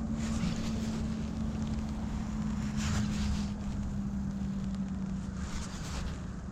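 A steady low motor hum that sinks slightly in pitch, with wind buffeting the microphone.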